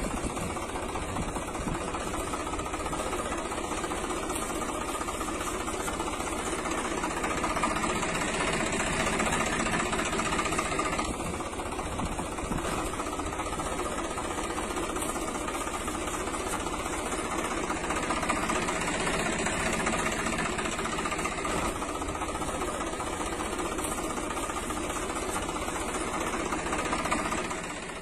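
A steady engine-like running sound with a fast, even rattling pulse, a small motor or vehicle engine running without a break and dropping away at the very end.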